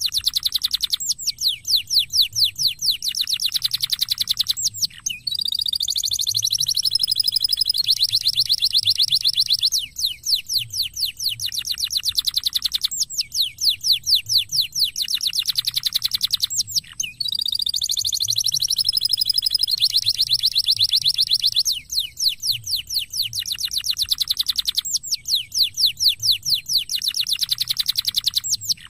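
Canary singing a long, continuous song: fast trills of high, downward-sweeping notes alternate with buzzy rolling trills, with only brief breaks every few seconds.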